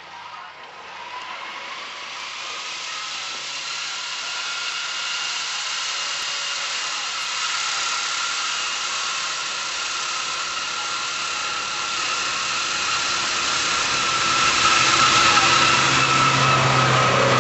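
Pinzgauer off-road truck driving up through deep snow, its engine running steadily and growing louder as it comes closer. It is loudest in the last few seconds as it nears.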